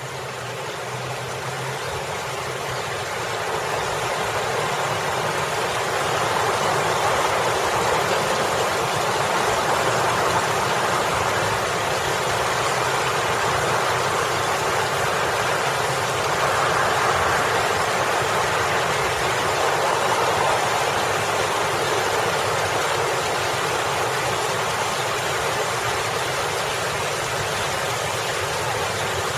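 Water from a boulder fountain splashing steadily into a rock pool, with road traffic running behind it. The sound fades in over the first few seconds and swells gently twice.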